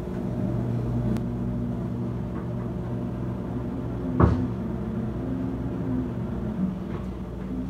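Steady low mechanical rumble with a wavering hum, from building work going on upstairs, with one sharp thud about four seconds in.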